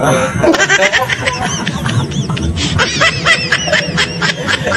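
A man laughing in a rapid run of high-pitched giggles.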